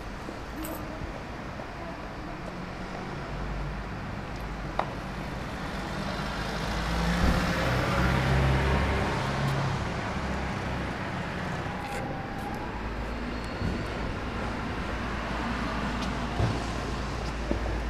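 Street traffic, with a vehicle passing that swells to its loudest about halfway through and then fades back into the steady traffic noise.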